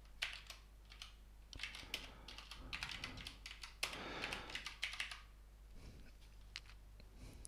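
Quiet typing on a computer keyboard: keys clicking in short bursts with pauses between, thinning to a few single keystrokes near the end.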